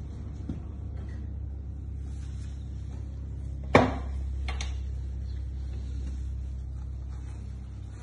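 A single sharp knock about halfway through, followed under a second later by a fainter click, over a steady low rumble.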